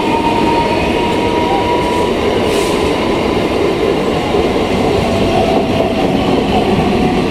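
Conventional-rake EMU local train running through a station at speed: steady loud rumble and clatter of the coaches' wheels on the rails. A thin whine fades out about two seconds in.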